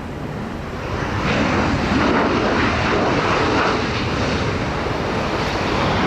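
Jet engines of a Boeing 737 airliner, a loud steady rushing roar that swells about a second in and then holds.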